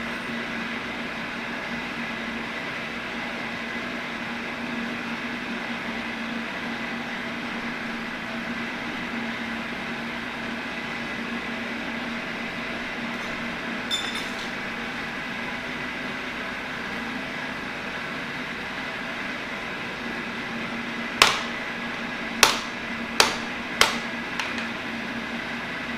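Steady machine-shop hum with a constant low tone, then four sharp knocks near the end, spaced roughly half a second to a second apart.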